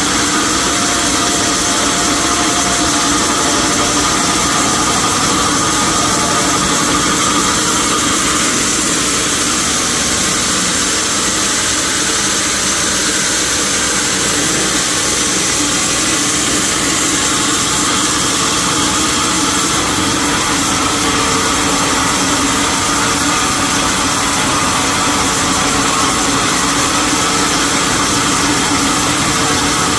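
Sawmill machinery running steadily, a loud, constant mechanical drone.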